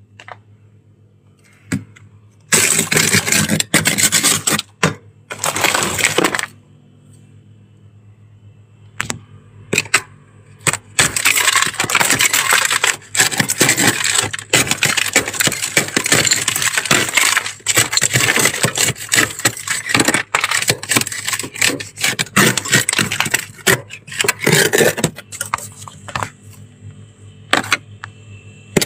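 Thick freezer frost being scraped off the inside walls with a hand-held scraper: dense runs of crisp crunching, scraping strokes. The scraping pauses for a few seconds near the start and again briefly, then goes on almost without a break. A low steady hum sits underneath.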